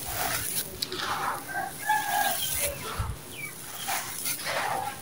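Dry gritty sand-cement with small stones crumbling and trickling through the hands in several grainy pours. A chicken calls in the background about one and a half to two and a half seconds in.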